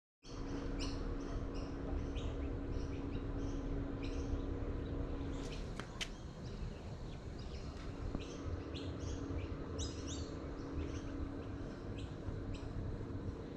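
Birds chirping in short, high calls repeated two or three times a second over a low steady hum, with one sharp click about six seconds in.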